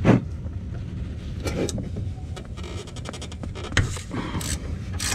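Ratchet with a long extension and an 8 mm hex bit working an oil drain plug on the dry sump: scattered metal clicks and knocks, the loudest right at the start, over a steady low hum.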